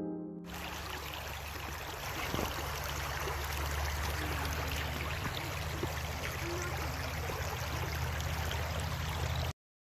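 Steady rushing of flowing water with a low, even hum beneath it. It cuts in as music stops and cuts off abruptly near the end.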